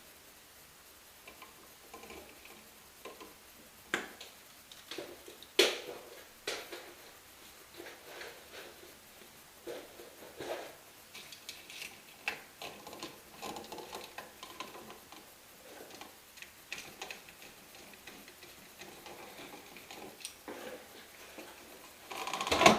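Scattered clicks, taps and handling noises of wires being fitted into a GFCI outlet's terminals and the terminal screws tightened with a screwdriver, with a sharp click about five and a half seconds in.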